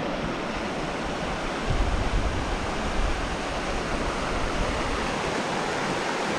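Steady rush of river water over small rapids, heard from an inner tube drifting toward them. A low rumble joins in from about two seconds in.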